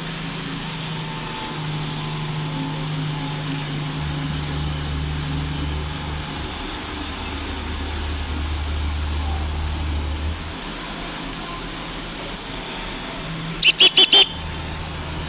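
Engine running steadily with a low drone that shifts note a few times, then four quick, loud high-pitched beeps close together near the end.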